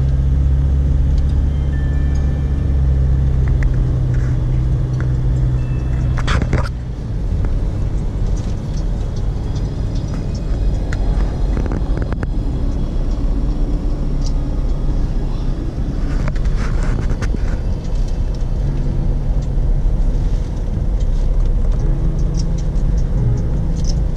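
Toyota Fortuner diesel heard from inside the cabin at cruising speed: a steady low rumble of engine and road noise. There are a few knocks and clicks from the camera being handled, the loudest about six seconds in.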